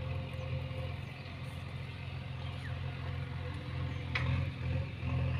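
A steady low engine hum, with a short click about four seconds in.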